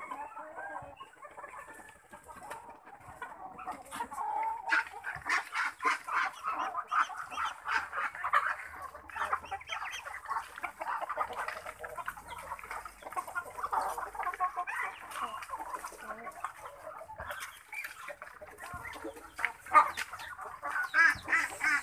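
Chickens clucking around a feed trough, a dense run of short calls that picks up about five seconds in and carries on.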